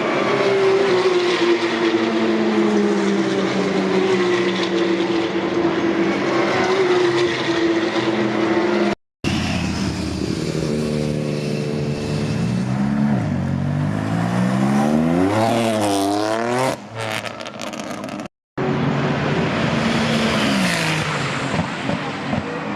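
Race car engines at high revs in three short clips split by brief cuts. First comes a steady run with slowly falling pitch, then engines rising and falling repeatedly through gear changes, then another car's engine dipping and rising again.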